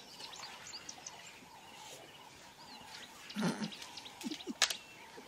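Small birds chirping and calling throughout, with a brief low sound about three and a half seconds in and a single sharp click about a second later.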